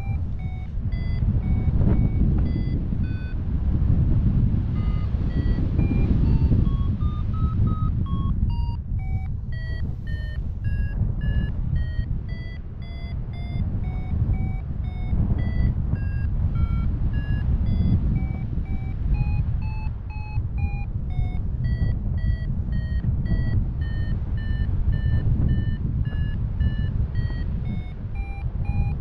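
Paragliding variometer beeping in short tones, about two to three a second, their pitch stepping up and down with the climb rate: the vario's climb signal in lift. A heavy wind rush runs underneath.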